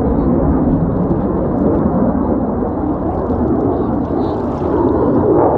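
CF-18 Hornet's twin General Electric F404 turbofan engines running in flight, a loud, steady low rumble that grows a little louder near the end.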